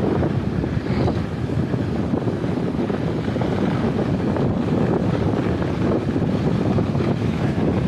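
Steady wind rushing and buffeting over the microphone, the kind heard on a fast ride down a toboggan run.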